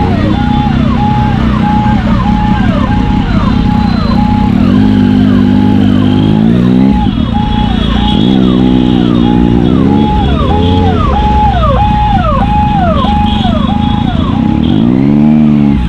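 Ambulance siren sounding close by, repeating a short falling tone about twice a second. Under it, motorcycle engines rev up and back down a few times in slow traffic.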